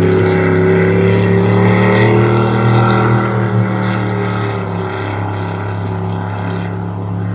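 Jetboat engine running hard with a steady drone, easing off slightly in the second half as the boat heads away upriver.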